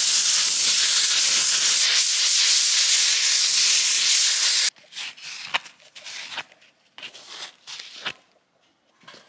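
Gas torch flame hissing steadily as it heats a cast iron housing. It cuts off suddenly a little under five seconds in, followed by a few faint clicks and knocks.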